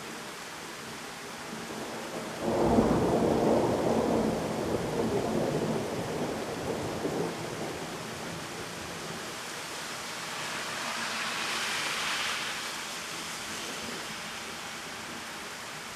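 Thunderstorm: steady pouring rain with a loud clap of thunder about two and a half seconds in, rumbling on and fading over the next few seconds. Later, a higher hiss swells and dies away for a few seconds.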